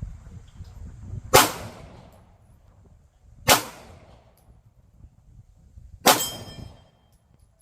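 Three 9mm pistol shots from a Glock 19 Gen 5, about two seconds apart. The last is followed by a brief metallic ring, typical of a steel target being hit.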